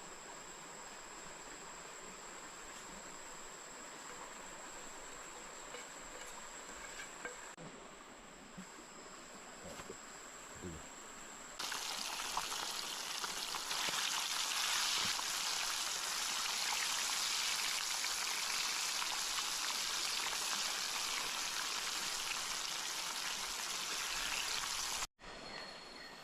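Insects trilling in a steady high tone, then about halfway a sudden loud rush of running water that cuts off abruptly near the end.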